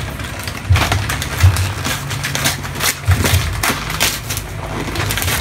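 Gift wrapping paper being torn and crinkled by hand off a box, in short, irregular rips and crackles.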